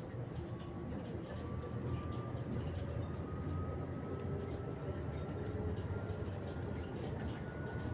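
Steady low rumble of road and engine noise inside a moving vehicle, with a faint whine that slowly rises in pitch.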